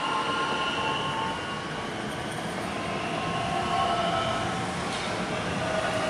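Bombardier Talent 2 (DB class 442) electric multiple unit passing at close range: a steady rolling rumble from wheels on rail with several high whining tones over it.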